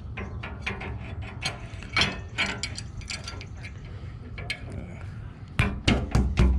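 Carbide insert tooth being fitted into a 54-inch circular sawmill blade: a string of irregular metal clicks, then from about five and a half seconds in a quicker run of louder taps as the insert is tapped in to seat it.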